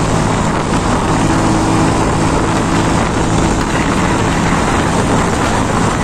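Motorcycle riding at speed on a motorway: a steady engine drone under a constant rush of wind and road noise.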